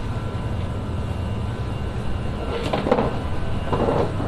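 Steady low machinery hum with a few faint fixed tones running through it, and a few brief louder sounds between about two and a half and four seconds in.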